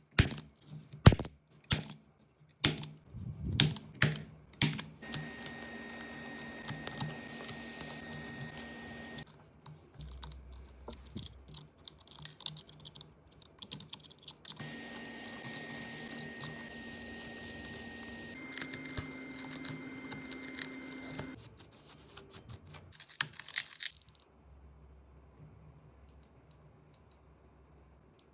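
Sharp clicks and taps of hand tools on an iPhone 13 Pro, then a small machine running with a steady whine in three stretches, the last slightly higher-pitched, with light clicking in between.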